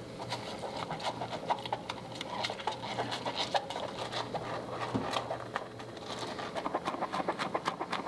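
Bottle brush scrubbing the soapy inside of a silicone cup: quick, repeated scratchy strokes of the bristles against the cup wall.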